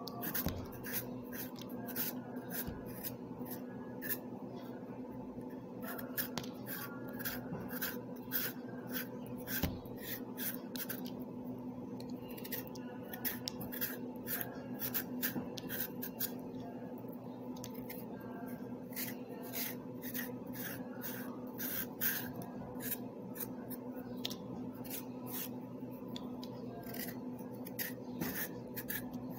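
A raw carrot being peeled by hand with a small blade: many quick, irregular scraping strokes as strips of skin come off. A steady low hum runs underneath.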